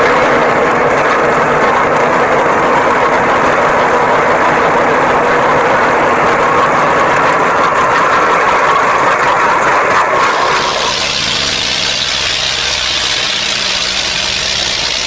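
Tractor engine running steadily; its sound changes about ten seconds in.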